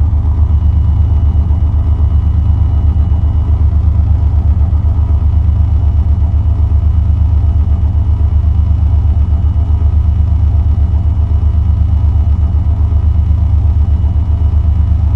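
Live electronic ambient music from a modular synthesizer rig: a loud, steady low drone with a fast pulsing flutter and a thin high tone held above it.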